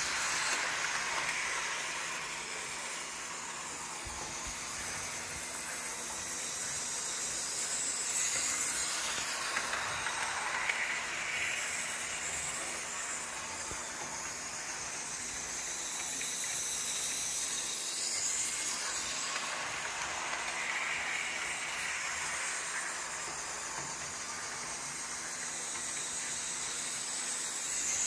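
Small electric toy train running laps of an oval of plastic track: a steady motor whir with the wheels clicking and rattling over the track joints. It grows louder each time the train passes close, about every nine or ten seconds.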